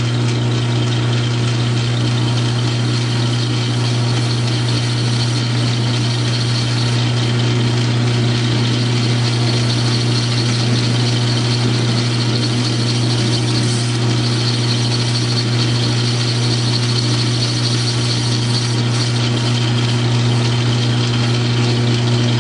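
South Bend lathe running steadily at slow spindle speed with a steady hum while a grooving tool is fed into the spinning workpiece.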